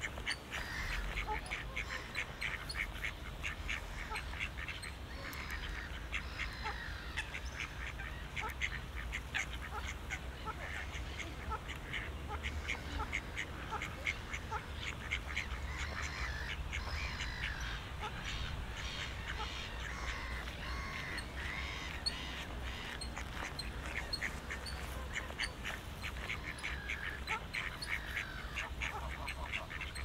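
Ducks quacking with small birds chirping, many short calls throughout, over a low steady rumble.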